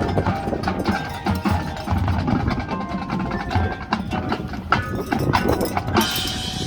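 Marching band percussion playing: wood block, chimes and mallet keyboards struck in a busy, uneven pattern over low drums. Crowd noise swells about six seconds in.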